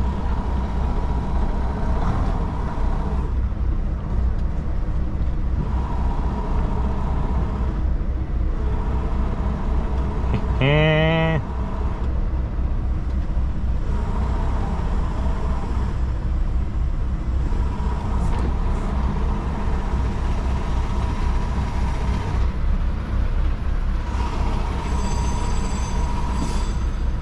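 Semi truck's diesel engine running with a steady low rumble. About ten seconds in, a brief pitched squeal rises and falls over it.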